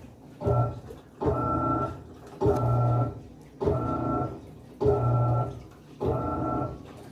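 Panasonic 14 kg top-load washing machine's pulsator motor agitating the load, running in humming strokes of about a second with short pauses between, roughly one stroke every second and a bit, as it turns the wash back and forth during the softener rinse.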